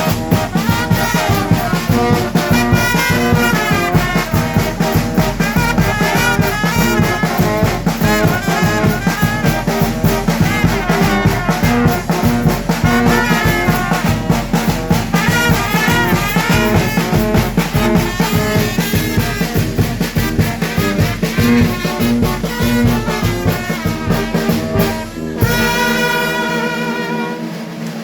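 Mexican banda (brass band) playing, trumpets and trombones over a steady drum beat. About 25 seconds in the music breaks off and a lighter melody without the bass and drums follows.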